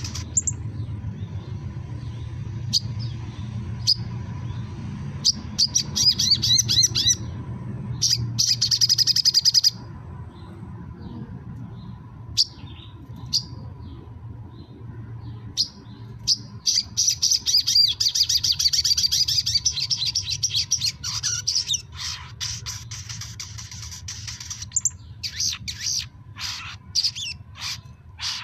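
Sogon songbird singing in its cage: sharp high chirps broken by fast trilling runs, the longest bursts a few seconds in and again past the middle. A faint steady high tone runs underneath.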